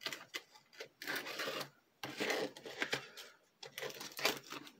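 A clear plastic case of silicone earplugs being worked open by hand: plastic crackling and clicking in several short bursts.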